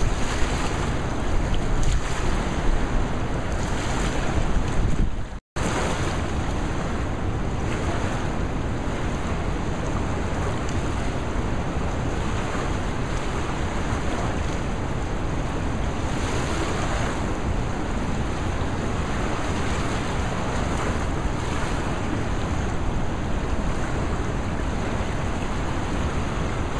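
Rushing whitewater of the James River rapids in flood: a steady, even roar of churning water. Wind buffets the microphone in the first few seconds, and the sound cuts out completely for a moment about five seconds in.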